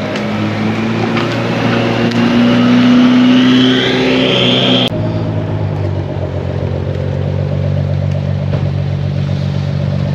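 Car engine accelerating, its pitch rising steadily for about five seconds, then cutting off abruptly. A lower, steady engine note of a car rolling in slowly follows.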